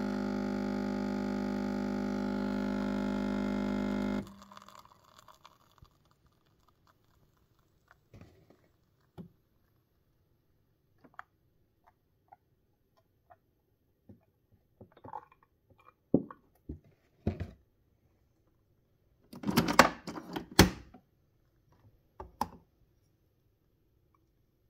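Nespresso capsule coffee machine humming steadily as it pumps the last of the coffee into a glass, cutting off abruptly about four seconds in. Then only scattered faint drips and small clicks, with a short cluster of knocks and clinks near the end as the glass is handled.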